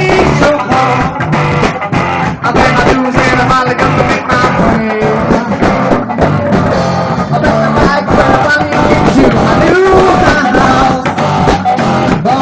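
Live rock band playing: electric guitar, bass and drum kit, with sung vocals.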